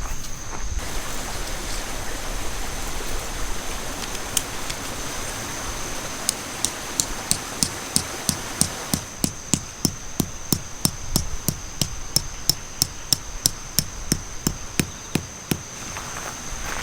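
A hammer driving a tent peg: a regular run of sharp knocks, light taps at first, then about three firm strikes a second. Under it runs a steady hiss and a constant high whine.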